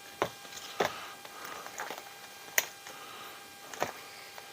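A few light, sharp clicks and taps of small parts being handled on a workbench during a teardown of an RC crawler, with faint rustling between them.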